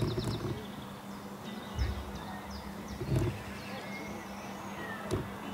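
Songbirds chirping and singing in the surrounding trees over a steady low hum, with a few brief, dull low thumps.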